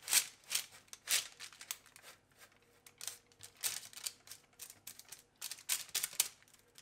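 Baking paper on a baking tray crinkling and rustling in a series of short scraping strokes as a muesli-bar mixture of oats and nuts is spread out evenly over it. The loudest strokes come in the first second or so.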